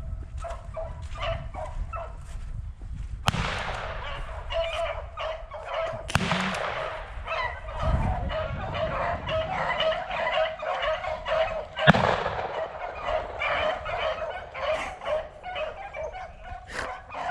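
A pack of beagles baying in a dense, overlapping chorus of short repeated cries, the hounds giving tongue as they run a rabbit. A single sharp bang cuts through about twelve seconds in.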